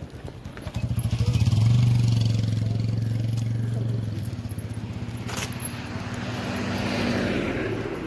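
Road traffic passing close by: a motor vehicle's engine comes by, loudest about two seconds in and then fading. Near the end another car passes with tyre noise on the road.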